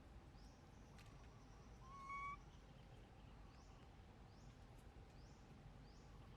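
A baby monkey gives one short, clear coo about two seconds in, rising slightly in pitch, over near silence. Faint high chirps repeat steadily in the background.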